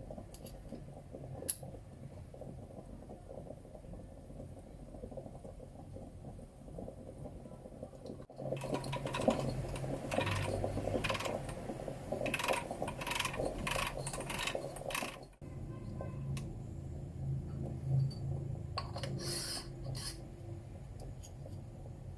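Household kitchen handling sounds in a few short cuts: a single clink near the start over a low hum, then a busier stretch of quick clinks, taps and rattles in the middle, and lighter clatter near the end.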